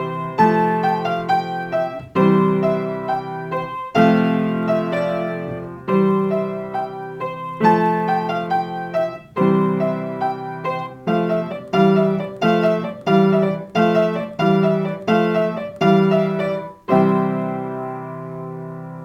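Piano played alone, the instrumental close of a song: full chords struck every second or two, then a run of quicker repeated chords, and a final chord about three seconds before the end that is held and left to ring out.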